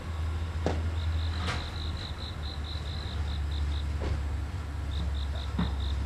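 Multiple tie tamper running along the track, its engine a steady low rumble, with a few short sharp knocks from the machine on the rails. Over it is a high chirping, about four pulses a second, that pauses and resumes.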